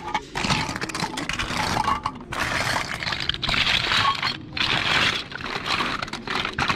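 Hands rummaging through a pile of small hard-plastic toy figures and parts: a continuous clattering and scraping of plastic pieces knocking together, with a couple of brief pauses.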